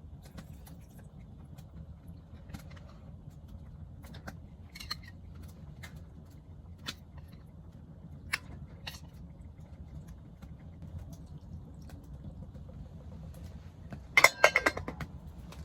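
Scattered light clicks and clinks of dishes and utensils over a steady low background noise, with a quick run of louder clatter near the end.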